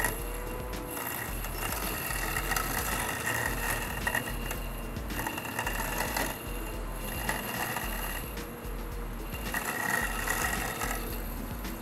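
Husqvarna Automower 315X robotic lawn mower running, a steady electric whir from its motors with several held tones that dip roughly every two seconds.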